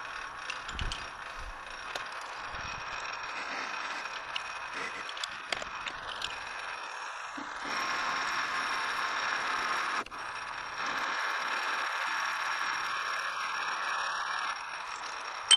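Precision Matthews 1127 metal lathe running with a cutting tool working a spinning metal bar held in the chuck. The cutting noise gets louder about halfway through in two spells, broken by a short dip.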